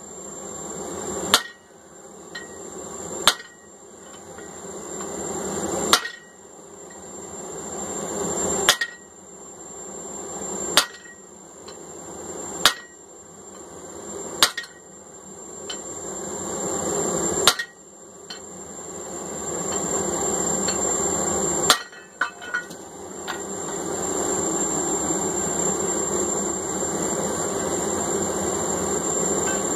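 Single hammer blows on steel at the anvil, about nine of them, spaced two to three seconds apart, while forging a hammer eye punch; the blows stop about two-thirds of the way through. A steady rushing noise runs between the blows and carries on alone after them.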